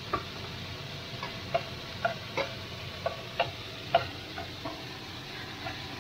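Metal kitchen tongs clicking and tapping against a nonstick wok while tossing chicken pieces and onion slices, about ten irregular clacks over a steady background hiss.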